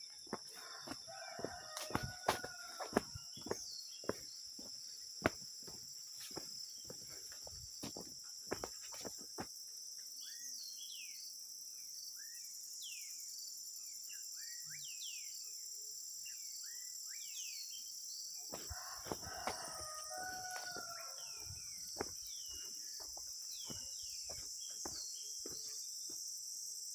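A rooster crowing twice, about two seconds in and again near twenty seconds, over a steady high insect buzz and scattered short bird chirps. Footsteps on a dirt path sound through the first nine seconds or so and again briefly around the second crow.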